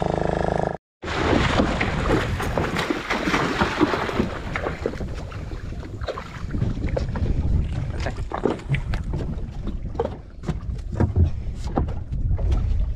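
Wind buffeting the microphone and water splashing against the side of a small fibreglass fishing boat while a hand line is hauled in, with many short knocks and splashes.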